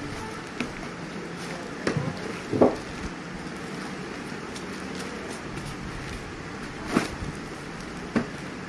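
Styrofoam packing blocks being handled and pulled off a boxed printer: a few sudden knocks and rubs, the loudest about two and a half seconds in, over steady background noise.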